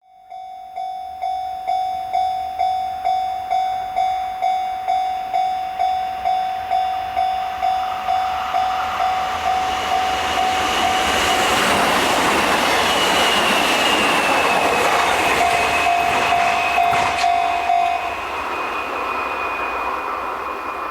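Japanese railway level-crossing warning bell starting suddenly and ringing about twice a second. About ten seconds in, a Kintetsu train passes and its noise rises over the bell. The bell stops near the end while the train runs on.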